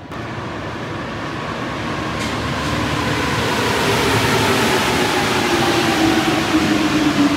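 Paris Métro line 1 rubber-tyred train pulling into the station, growing louder as it comes alongside the platform, its motor whine falling slowly in pitch as it brakes.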